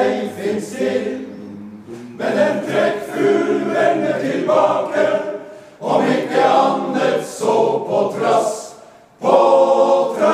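Men's choir singing a cappella, in phrases with short breaks about two, six and nine seconds in.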